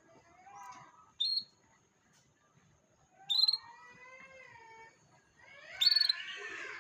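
Canary lure song of the kind played to get young canaries singing: three short, sharp high chirps with longer, lower drawn-out notes that bend up and down between them.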